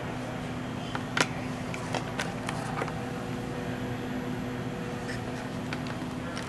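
Steady hum of a Siemens S70 light rail vehicle's cab ventilation and onboard equipment, with a held droning tone. A few sharp clicks break in, the loudest about a second in and smaller ones around two to three seconds in.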